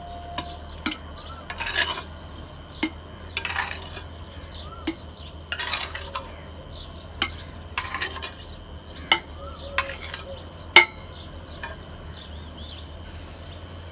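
Steel spoon scooping thick homemade yogurt out of an earthenware bowl, scraping the clay and clinking against the vessels in irregular strokes every second or two.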